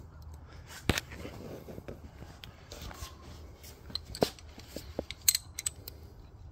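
Ratchet wrench and hand tools clicking and clinking on metal engine-bay bolts: a handful of separate sharp clicks and knocks, with a small cluster of them a little after five seconds.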